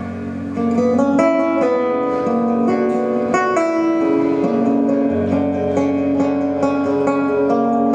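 Live music: acoustic guitar picking ringing single notes and chords, getting louder about half a second in.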